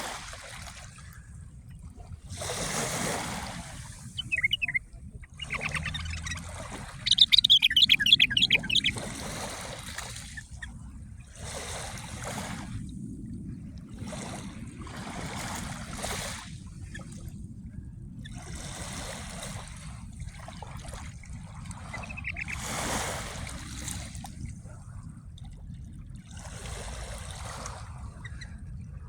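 Small sea waves washing in every few seconds over a steady low rumble, while a songbird sings in short bursts of rapid trills, loudest about seven to nine seconds in.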